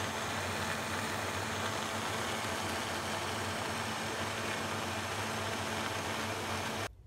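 Vitamix high-speed blender motor running steadily, blending a smoothie to a creamy consistency, with a constant hum under the whir. It stops abruptly near the end.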